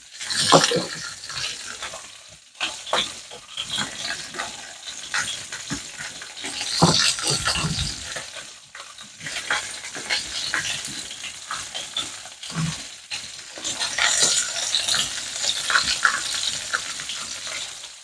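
Pork ribs sizzling in a frying pan, with clicks and knocks as chopped vegetable pieces are dropped and pressed into a glass jar.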